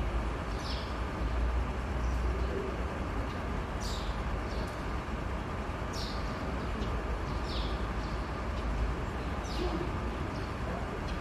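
Feral pigeons cooing faintly twice over a steady low background rumble, with short high chirps from small birds every second or two.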